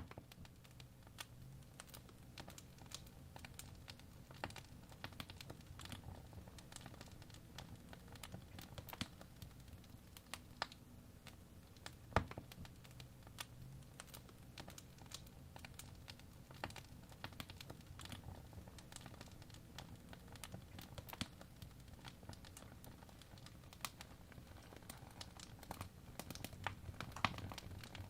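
Fire crackling in a fireplace: irregular sharp pops and snaps over a low, steady rumble of burning, with a louder pop about twelve seconds in and another near the end.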